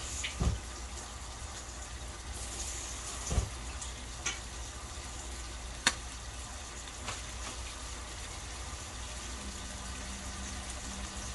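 Beef steak sizzling in an oiled grill pan: a steady frying hiss with a sharp pop of spitting fat now and then.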